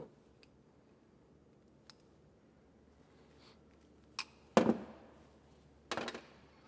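A few sharp clicks and clacks of hand tools at work on wiring, the two loudest about four and a half and six seconds in, as a ring terminal and butt connector are crimped onto a fuse-holder wire.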